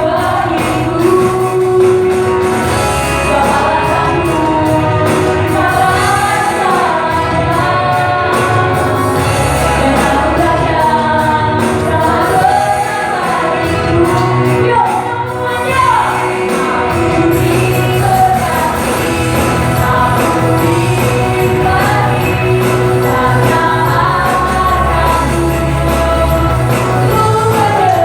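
Group of singers performing an Indonesian worship song together over band accompaniment with a steady beat and bass.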